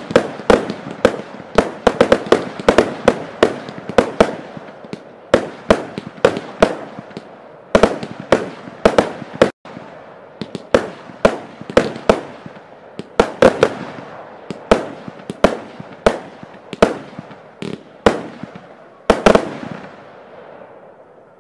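Aquarius C fireworks battery firing shot after shot, a dense, irregular run of sharp bangs about two or three a second as its shells launch and burst, thinning out near the end.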